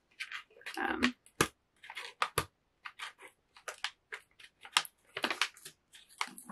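Brown paper wrapping crinkling and crackling in short, irregular bursts as fingers pick at the tape on it.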